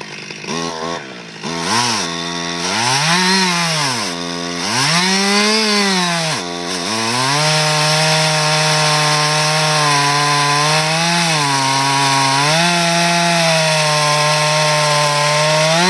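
Two-stroke chainsaw revved in several rising-and-falling bursts, then held at full throttle for about eight seconds while cutting into the tree trunk, with two brief dips in engine speed, dropping off at the very end.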